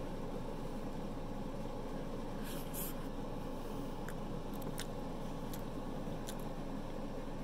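A person chewing pizza, giving a few faint wet mouth clicks and smacks, more of them in the second half, over a steady background hiss.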